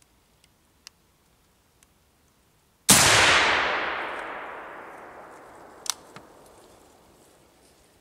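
A single rifle shot about three seconds in, a sighting-in shot fired from a bench rest. Its report rolls away through the forest and dies out over several seconds. A sharp click follows about three seconds after the shot.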